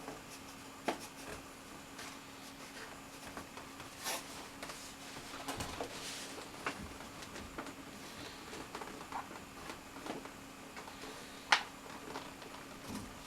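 Scattered light clicks and taps from handling the foam-and-plastic parts of a model airplane during assembly, over a steady faint hum, with one sharper click near the end.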